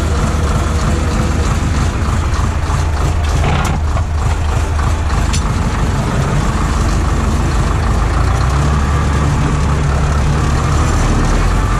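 Farm tractor engine running steadily, with a couple of short sharp knocks about three and a half and five seconds in.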